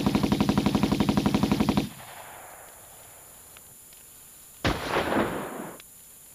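A machine gun firing a long burst of about a dozen shots a second, stopping about two seconds in with an echoing tail. A shorter, rougher burst of noise follows about four and a half seconds in.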